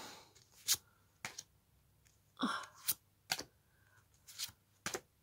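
Stiff board-game cards being handled and swapped one after another, giving a series of short sharp clicks and flicks, sometimes two close together. A short breathy noise about halfway through.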